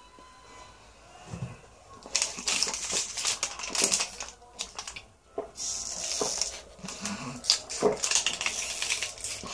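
A thin plastic water bottle crackling and crinkling in rapid, irregular clicks as it collapses while the water is sucked out of it, starting about two seconds in.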